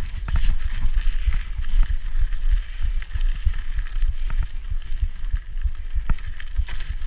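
A 1990 Peugeot Hurricane rigid mountain bike ridden over a dirt trail: tyres rolling on dirt and the unsuspended frame and parts rattling and knocking over bumps, with wind buffeting the microphone. One sharper knock about six seconds in.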